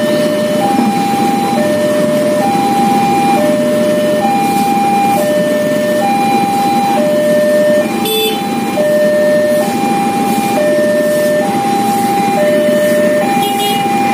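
Railway level-crossing warning alarm of the standard PT KAI type, sounding a steady two-tone call: a higher and a lower tone take turns, each just under a second long. Motor engines run underneath, and there is a brief rattle about eight seconds in.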